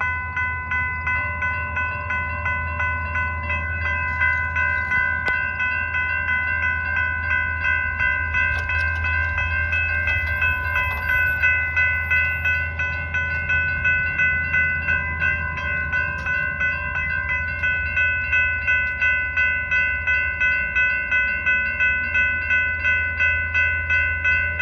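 Railroad grade-crossing warning bells ringing in a steady repeating pattern of about two dings a second. They start suddenly as the crossing activates for an approaching train. A low steady rumble runs underneath.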